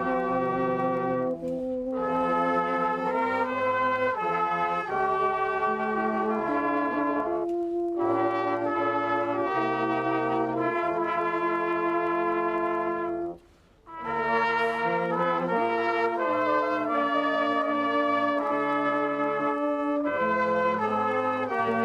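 Brass band playing a slow, chordal carol or hymn tune in long held notes, with a brief break between phrases about two-thirds of the way through.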